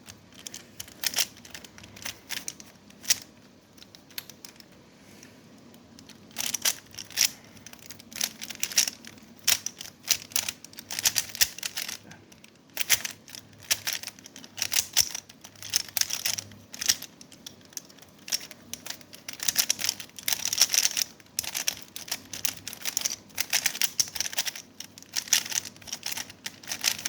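Plastic Rubik's Cube being turned by hand, its layers clicking and rattling in quick runs. The cube is stiff and hard to rotate. The turns are sparse, with a short pause, for about the first six seconds, then come almost without a break.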